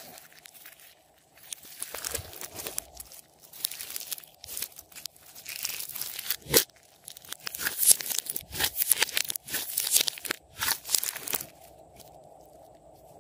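Glossy pink slime mixed with foam beads being squeezed and stretched by hand, giving a dense run of crackling, popping and crunching, with a sharp pop about six and a half seconds in. The crackling starts about a second and a half in and stops shortly before the end, leaving a faint steady hum.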